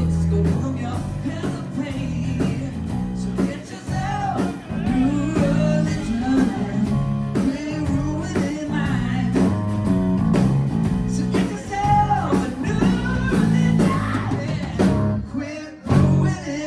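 Live pop-rock band playing with a male lead singer, bass and drums keeping a steady beat. The song closes on a final loud hit near the end.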